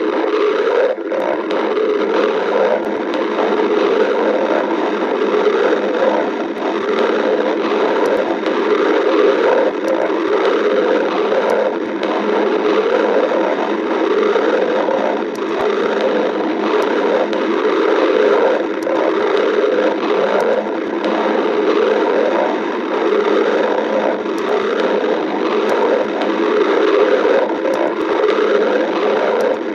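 Stomach growling: a continuous gurgling rumble that swells and eases without a break.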